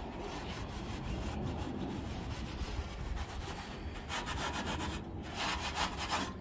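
Soapy steel wool scrubbed back and forth against the steel inside of a new offset smoker's cooking chamber, a wet rubbing scrape that works off the factory coating. The strokes come quicker and louder for the last couple of seconds.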